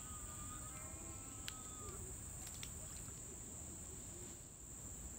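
Insects droning: a steady, high-pitched buzz. A single faint sharp click comes about one and a half seconds in.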